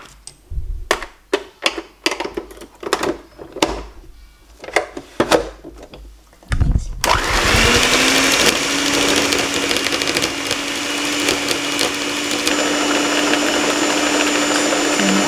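Sharp clicks and knocks of the stand mixer's parts being handled and set in place. About seven seconds in, the Moulinex stand mixer's motor starts with a short rising whine and then runs steadily, beating butter and sugar in the bowl.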